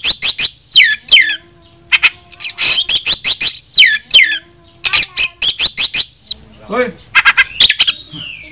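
Male oriental magpie-robin singing a loud, varied challenge song aimed at rivals. It comes in short phrases of quick sharp notes and falling whistled slurs, with brief pauses between them and a harsher burst near the end.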